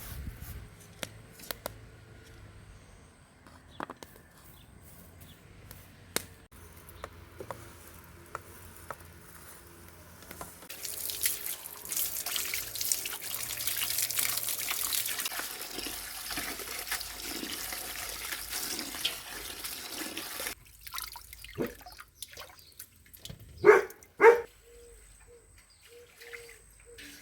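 Water running or being poured for about ten seconds, starting roughly ten seconds in, amid scattered small clicks and knocks; two short, louder sounds come near the end.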